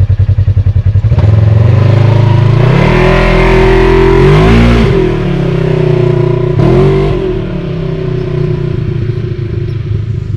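Polaris RZR XP 1000's engine running close by with an even pulse, then revving up about a second in. It climbs in pitch to a peak about four and a half seconds in, drops back, revs briefly again near seven seconds, then settles to a steady lower speed.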